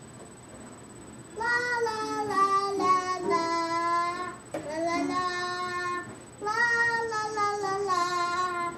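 A young girl singing held notes in three phrases, the first starting about a second and a half in.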